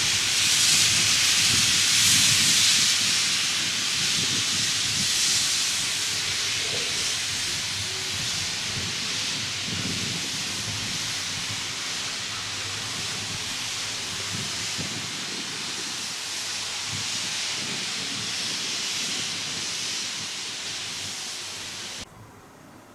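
Steam hissing loudly from a small tank steam locomotive as it moves slowly away, the hiss fading gradually and then cutting off abruptly about a second before the end.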